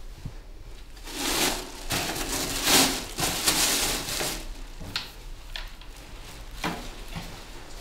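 Rustling and crinkling as something is handled, from about a second in until about four and a half seconds, then a few short clicks.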